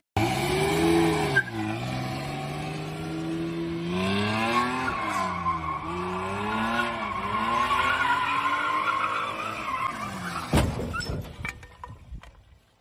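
BMW E30 convertible's engine revving up and down while the car spins donuts, its tyres squealing. About ten and a half seconds in there is a sudden loud thump as the car hits the curb, and then the engine sound dies away.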